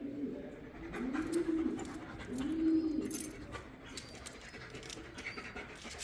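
Three low, drawn-out animal calls in the first three seconds, each rising and then falling, followed by scattered light clicks and scuffs.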